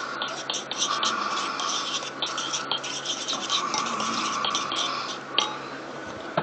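A spoon scraping and stirring in a container of marinade ingredients, a rapid scratchy rasp broken by short pauses.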